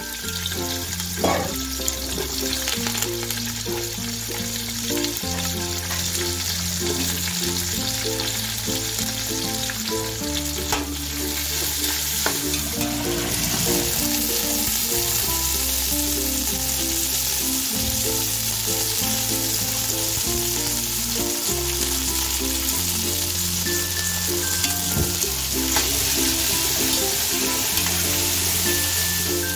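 Sliced onions, whole spices, green chillies and chopped herbs sizzling as they fry in hot oil in a pot. The sizzle grows louder about halfway through, and the mixture is stirred near the end. Background music plays throughout.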